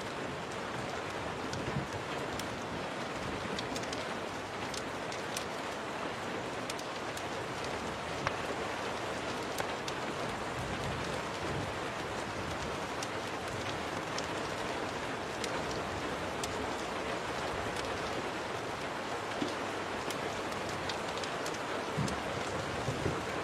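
Steady rain falling, mixed with scattered sharp crackles and pops from a wood fire.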